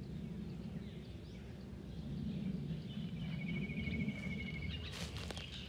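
A bird trilling, one steady high-pitched run of rapid notes lasting under two seconds, over a low outdoor rumble; a few sharp clicks about five seconds in.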